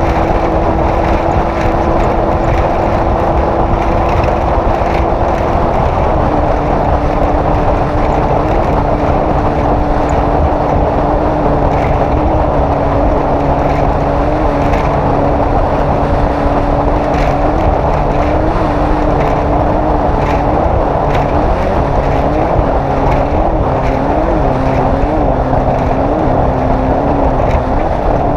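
Off-road race vehicle's engine running steadily under load, with a constant hum of road and wind noise and scattered knocks. The engine note drops a step about six seconds in, then rises and falls briefly several times near the end as the throttle is worked.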